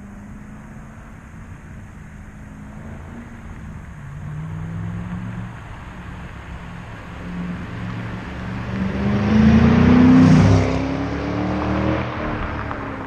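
Ford Mustang GT 4.6-litre V8 with Legato axle-back mufflers driving past under acceleration. Its exhaust note climbs in pitch and grows louder, is loudest about ten seconds in, then drops in pitch as the car moves away.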